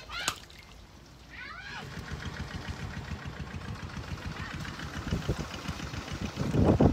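A small motorbike engine idling with a steady low putter that starts about two seconds in and swells louder near the end. Just before it, a short high wavering call sounds.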